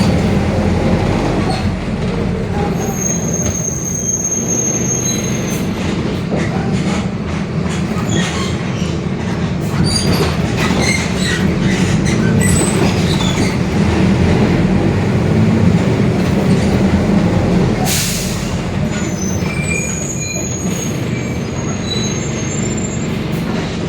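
Mercedes-Benz OF-1721 city bus under way, heard from inside: a steady low drone from the diesel drivetrain, with the growl of the rear differential, and the Mascarello body creaking and squeaking over the road. A short hiss about eighteen seconds in.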